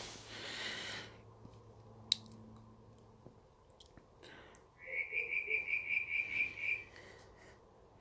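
An animal calling: a rapid, pulsed, high-pitched trill lasting about two seconds, starting about five seconds in. A faint steady low hum lies under it.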